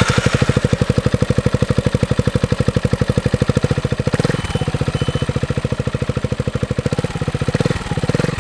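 Gilera Fuoco 500 three-wheeled scooter's single-cylinder four-stroke engine idling just after starting, heard at its aftermarket Akrapovič twin-outlet silencer as an even beat of exhaust pulses, about twelve a second. The beat eases briefly about four seconds in, then steadies again.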